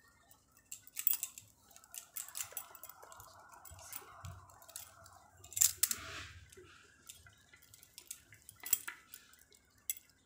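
A metal spoon stirs a thick paste of mashed potato, tomato, gram flour and coconut oil in a small ceramic bowl, clinking and scraping against the bowl. Partway through, the mixing goes on by hand, with only an occasional click.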